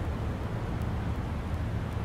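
Steady low rumble of outdoor background noise with a faint hiss above it, unchanging throughout.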